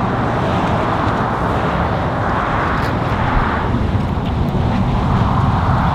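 Road traffic going by: a steady engine rumble under a rushing hiss of tyres and air.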